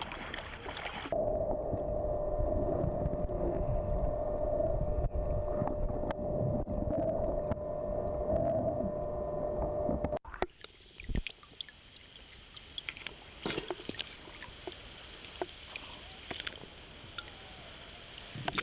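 Underwater sound picked up by a diving camera: a low rumble with a steady humming tone. About ten seconds in it cuts off sharply and gives way to quieter hiss with scattered clicks.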